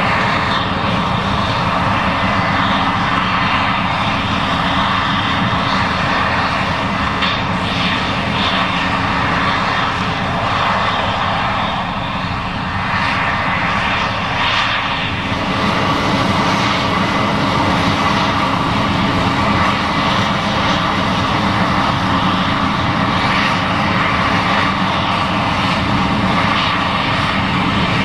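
Case IH 7140 Axial-Flow combine running steadily while harvesting corn: a constant engine drone mixed with the noise of the working machine.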